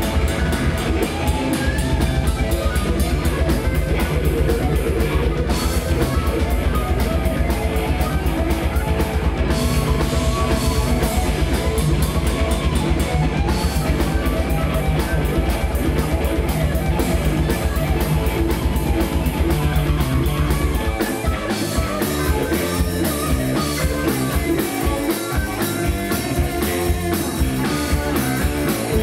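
Live rock power trio playing an instrumental passage on electric guitar, bass guitar and drum kit. About two-thirds of the way through, the sustained low end breaks into a choppier bass pattern.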